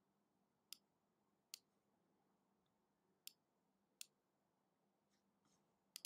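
Faint, sharp computer clicks over near silence: four single clicks spaced irregularly, then a quick double click at the very end.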